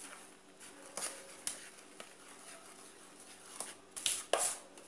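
A spoon stirring a thick chocolate batter in a stainless steel pan: faint scraping, a few sharp taps of the spoon against the pan, and a couple of louder scrapes near the end.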